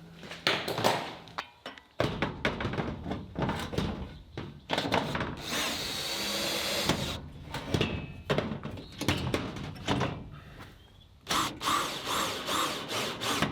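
Hands-on tool work with a run of knocks and thunks, and a power drill running steadily for about two seconds in the middle.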